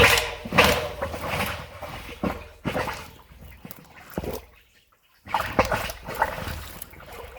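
Irregular splashes, knocks and crunches of beaver-dam sticks, rocks and mud being worked loose from a clogged culvert pipe, with a short quiet break a little past halfway.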